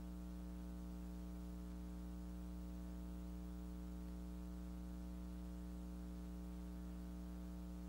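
Faint, steady electrical hum with many overtones under a light hiss: the background noise of a VHS tape transfer over silent title cards, with no soundtrack.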